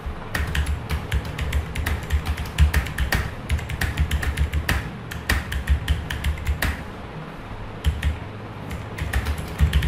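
Computer keyboard being typed on: quick, irregular key clicks, easing off briefly about two-thirds of the way through before picking up again.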